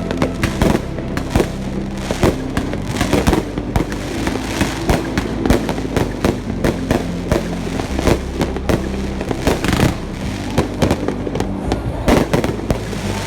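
Fireworks display: a rapid, continuous run of bangs and crackling bursts, many reports a second, with music underneath.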